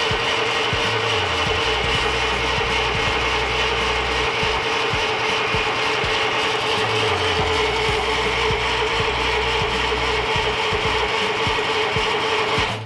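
Steady mechanical whirring with a constant mid-pitched whine, cutting off abruptly near the end.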